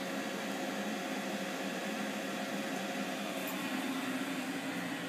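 Steady hum of a CNC milling machine running, several even tones over a constant whir, with no cutting strikes or changes.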